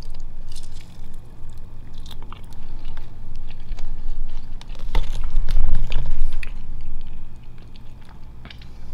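A person biting into and chewing a chicken wing close to the microphone, with scattered clicks and low bumps that are heaviest about halfway through.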